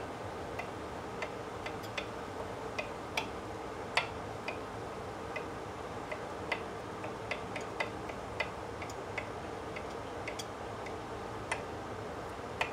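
Kitchen knife rough-chopping on a wooden cutting board: light, irregularly spaced taps, about one or two a second.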